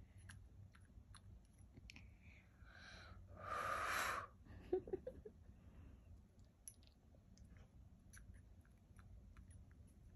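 Small plastic toy pieces being fiddled with, giving faint scattered clicks. About three and a half seconds in there is one breathy exhale or blow lasting about a second, followed by a few quick squeaky plastic clicks.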